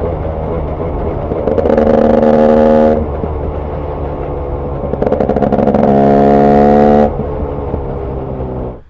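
KTM 300 TPI two-stroke dirt bike engine, with an FMF racing pipe and an Akrapovic silencer, running steadily and blipped up twice. Each rev is held for about a second and a half before it falls back. The sound cuts off sharply near the end.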